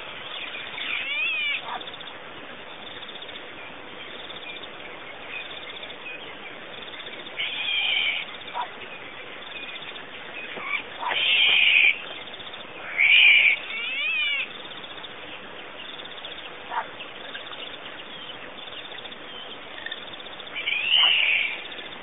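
An animal calling in about five short, high-pitched bursts, loudest in two calls just past the middle, over a steady background hiss.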